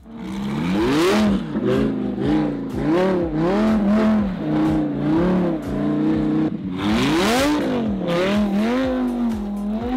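Lamborghini Huracán's V10 engine revving up and down over and over as it spins donuts on dirt, the pitch rising and dropping roughly once a second, with a bigger rev about two-thirds of the way in. Under it is the hiss of the tyres spinning on loose dirt.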